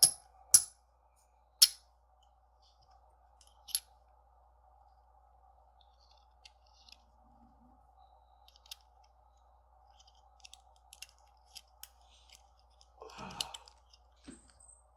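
Small zirconium metal parts of a disassembled haptic coin fidget toy clinking as they are handled: four crisp metallic clicks in the first four seconds, then faint scattered ticks and a short rustle near the end.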